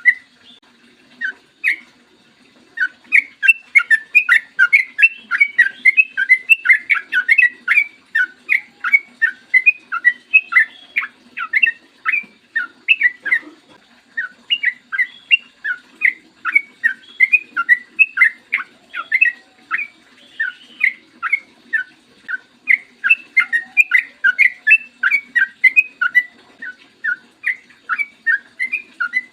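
Yellow-vented bulbul (trucukan) singing a long, lively run of short bubbling notes, about three to four a second, with a short pause near the start.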